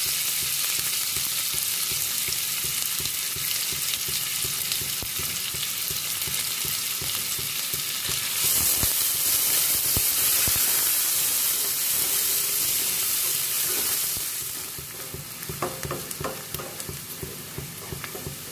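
Chopped onions sizzling in hot oil with cumin seeds in a stainless steel pan, stirred with a spatula. The sizzle grows louder about halfway through and eases off a few seconds before the end.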